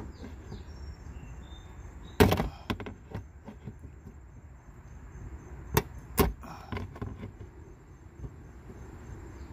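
Metal hook tool prying at a plastic push clip in a car's wheel-well splash shield. It gives a few sharp clicks: a loud one about two seconds in, and two more about six seconds in.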